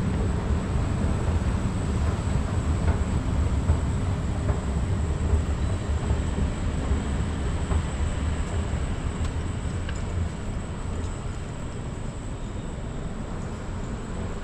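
Steady low mechanical rumble in a metro station with a faint steady high whine; the rumble eases off about ten seconds in.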